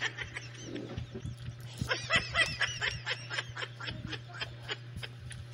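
Close-up eating sounds: a metal spoon clicking against a ceramic plate and mouth noises of chewing rice, over a steady low hum. About two seconds in comes a quick run of high chirping calls lasting a second or so.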